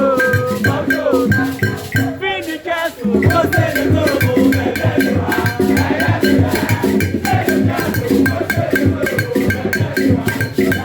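Music played over a sound system, with a steady percussive beat and melodic lines; the bass drops out briefly about two seconds in, then returns.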